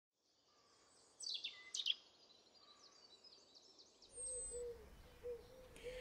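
European robin singing: high, thin phrases with quick falling notes, starting about a second in. From about four seconds in, low outdoor background rumble with a faint series of short low notes.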